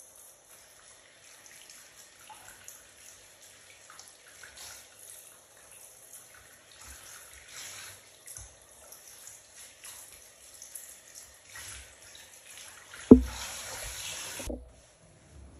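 Hand-held shower head spraying water onto a dog's wet coat in a bathtub: a steady hiss and trickle of water. Near the end a sharp thump, the loudest sound, then the water runs louder for about a second and a half before cutting off suddenly.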